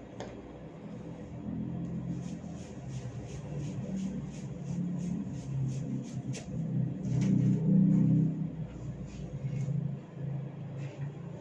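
Hair cracking: tufts of hair pulled tight at the scalp, giving a quick run of small crisp snaps, about three a second, over a low rumbling noise.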